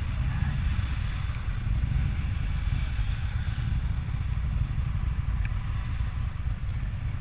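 A big touring motorcycle's V-twin engine idling at a standstill, a steady low, uneven beat, with other motorcycles idling nearby.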